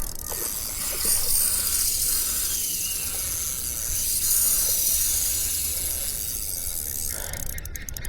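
Fishing reel's drag buzzing steadily as a hooked fish pulls line off the spool, with the drag set light.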